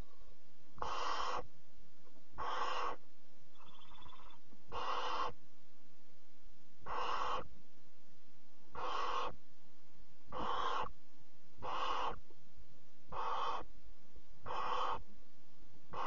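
Barn owl owlets giving their hoarse, hissing food-begging 'snore' calls: about nine short hisses, each about half a second long and one every one and a half to two seconds. A faint brief twittering call comes about four seconds in.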